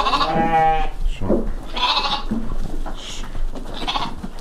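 Sheep bleating: one long bleat in the first second, then brief further sounds from the flock.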